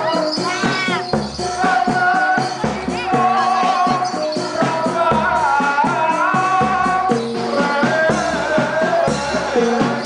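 Traditional Javanese ensemble music accompanying a reog dance: shaken rattling instruments over a melody of short stepped notes, with a voice singing above.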